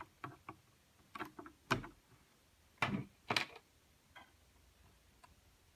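Irregular sharp clicks and light knocks of small tools and parts being handled, about eight of them, the loudest near the middle.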